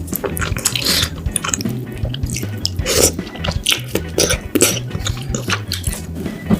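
Wet chewing and squishing mouth sounds of someone eating tteokbokki, chewy rice cakes in a thick spicy sauce, with many quick irregular smacks and clicks.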